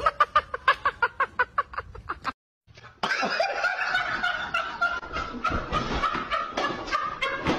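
Fast, regular laughter, about six bursts a second, stopping about two seconds in; after a short break, another stretch of laughter with a held high note.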